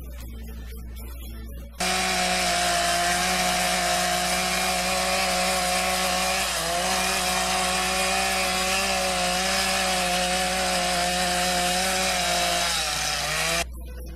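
Chainsaw running at high speed while carving wood, a steady engine note that dips briefly midway and falls in pitch near the end. It starts abruptly after a couple of seconds of soft guitar music and cuts off sharply.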